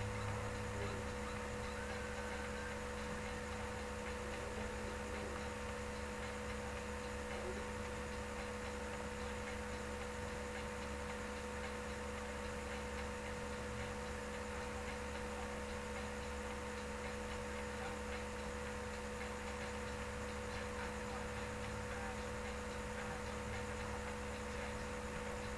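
Steady electrical hum and hiss from the recording chain, with several constant tones and no other events: room tone while the screen is idle.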